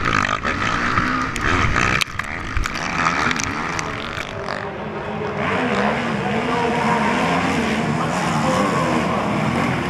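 Motocross bike engines revving up and falling back as riders race over a dirt track. At first they are heard up close from an onboard camera, with choppy crackles. From about five seconds in, several bikes can be heard, with an engine note that rises and falls.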